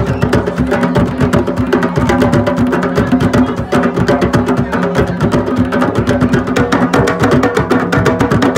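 A group of djembes and other rope-tuned hand drums played together by hand in a fast, dense rhythm, the strokes overlapping without a break.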